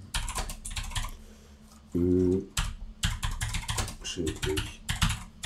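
Typing on a computer keyboard: a quick, uneven run of key clicks as a web search is typed in.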